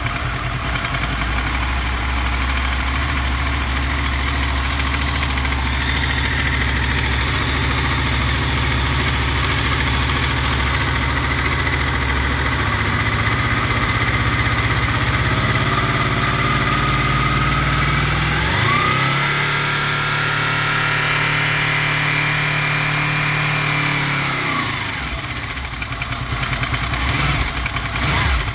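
Honda VFR800 VTEC's V4 engine idling warm, then revved up in steps from about twelve seconds in. It is held at higher revs for about six seconds and drops back to idle near the end. This is an engine with a metallic knock that shows when hot, which the owner traces to the front cylinder on the right side.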